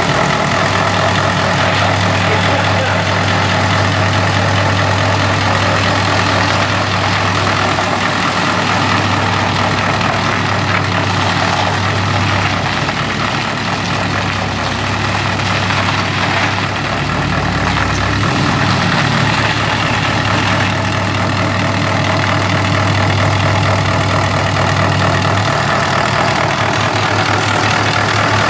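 Dodge Ram pickup's 6.7 Cummins diesel engine idling steadily, with a slight shift in its low hum about two-thirds of the way through.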